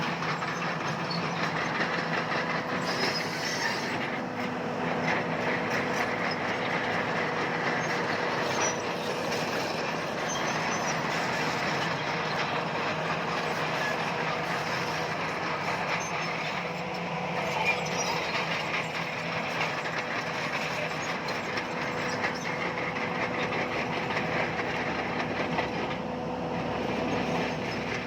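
Crawler bulldozer at work: its diesel engine running steadily, with the continuous clatter of its steel tracks.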